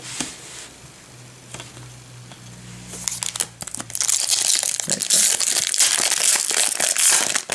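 Foil trading-card pack wrapper crinkling loudly in the hands as the pack is opened, starting about three seconds in after a few faint handling clicks.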